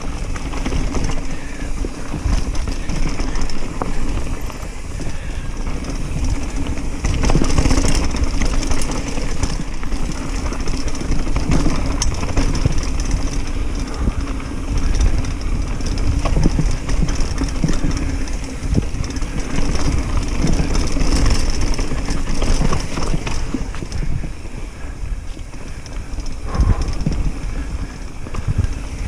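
Steel hardtail mountain bike (Commencal Meta Cromoly) ridden fast down a dirt trail. Wind buffets the camera's microphone with a rough, uneven rumble over the tyres rolling on the dirt and a constant clatter and rattle of the bike over the bumps.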